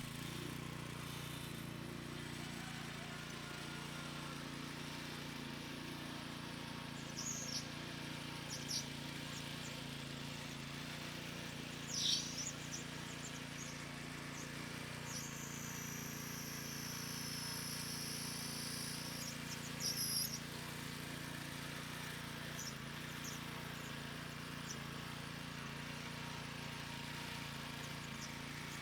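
Birds chirping over a steady low hum, with one long, high whistled call lasting several seconds midway.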